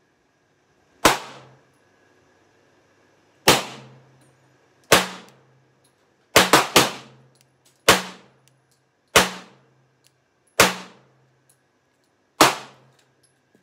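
Glock 21 .45 ACP pistol firing ten single shots, mostly one to two seconds apart, with three quick shots in a row about halfway through. Each shot has a short echo.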